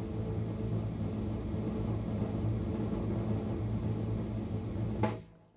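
A steady low droning rumble with a few held tones, stopping abruptly about five seconds in.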